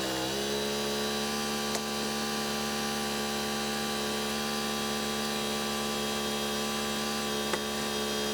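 Wood-Mizer LT35 portable band sawmill running steadily, its engine pitch dipping briefly just at the start and then holding level, with a couple of faint ticks.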